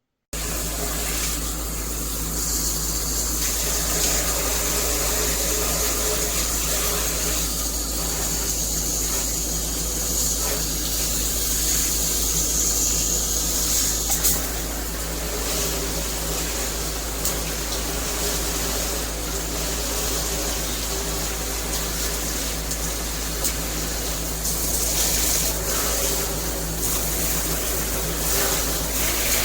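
Water spraying steadily from a shower head, an even rushing hiss with a few faint clicks.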